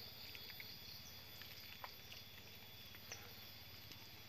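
Faint, steady high chirring of insects, with a few light clicks of footsteps on dry leaf litter.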